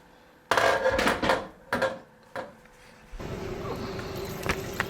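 A few short clatters and knocks of kitchen handling, like a cupboard or container being opened, then a steady low hum with a faint whine that starts about three seconds in.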